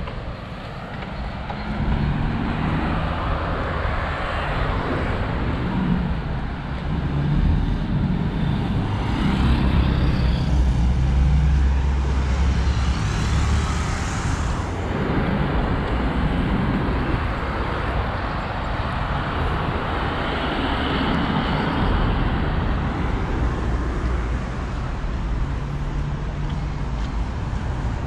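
Road traffic on a busy city avenue: cars and buses passing with engine hum and tyre noise, swelling as one vehicle passes loudest near the middle.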